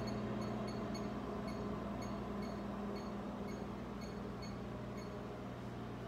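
Microwave oven running with a steady low hum, overlaid by short high beeps about twice a second from a handheld GQ EMF-390 meter's audible alert.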